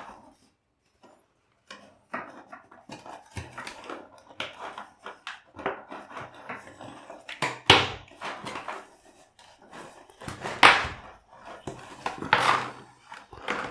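Plastic packaging around a microphone being handled and pulled open: irregular crinkling and rustling with sharp crackles, and louder bursts of crackling several times in the second half.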